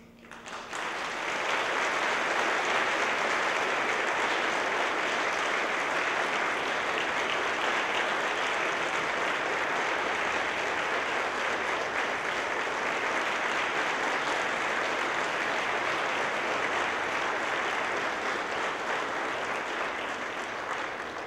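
Audience applauding at the end of a choir piece: the clapping swells in over the first second or two, holds steady, and eases off slightly near the end.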